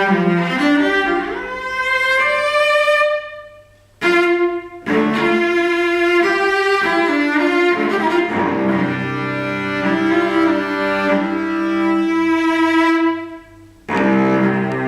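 A cello built after the 1740 Montagnana model, bowed solo in melodic phrases of moving and held notes. The sound dies away twice, about four seconds in and near the end, before the playing resumes.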